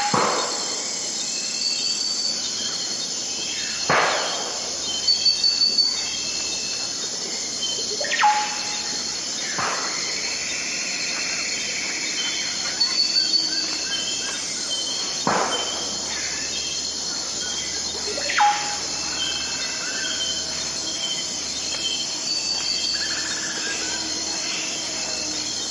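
Tropical rainforest dawn ambience: a dense, steady hiss of insects, with loud bird whistles over it that sweep sharply downward, about six times. A few quick runs of four or five short notes are heard twice.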